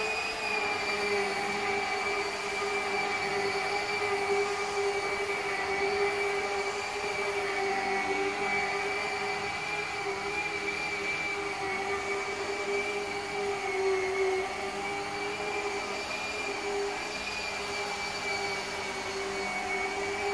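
Electric motor of a power tool running at a steady speed with an even whine.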